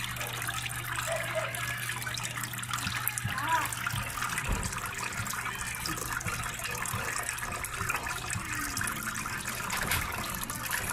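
Water from a small homemade tiered fountain spilling over its stacked bowls and splashing steadily into the basin below, with a steady low hum underneath.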